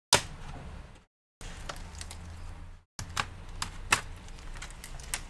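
Sharp plastic clicks and snaps of the bottom cover of an HP EliteBook 840 G5 laptop being pried off, its retaining clips letting go one after another, over a low steady hum. The sound cuts out to silence twice, briefly.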